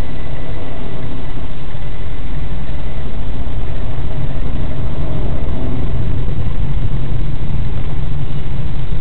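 Car engine and road noise heard from inside the cabin while driving: a steady low rumble that grows stronger about three seconds in.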